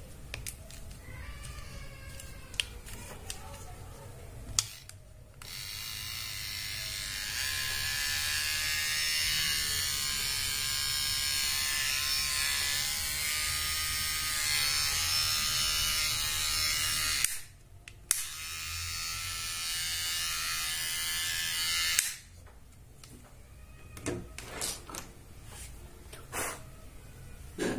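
HTC AT-522 rechargeable hair trimmer switched on with a click about five seconds in, its motor and cutting blades running with a steady high buzz for about twelve seconds. It is switched off, clicked on again for about four more seconds, then off, with plastic handling clicks around it.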